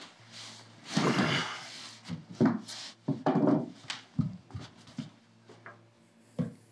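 Clothing rustling and bodies shifting against each other, with a run of soft knocks, as one man helps another up off a wooden floor. The sounds are densest in the first few seconds and thin out, over a faint steady low hum of room tone.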